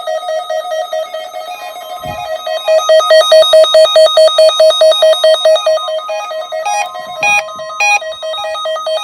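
A weather radio receiver's electronic alert beeping in a fast repeating pattern, set off by a weekly test broadcast of NOAA Weather Radio. From about two seconds in, the steady 1050 Hz warning alarm tone runs beneath it, and there is a brief knock at about the same moment.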